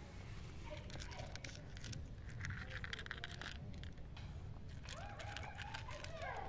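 A cat eating dry kibble from a plastic plate: quick crunching and clicking, thickest a couple of seconds in, over a steady low rumble. A short pitched call comes near the end.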